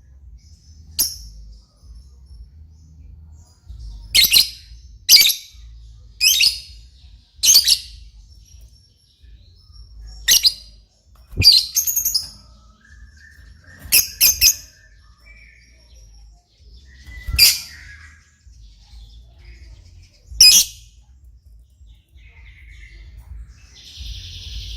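Lovebird giving shrill, loud single chirps, about a dozen of them at irregular gaps of one to three seconds.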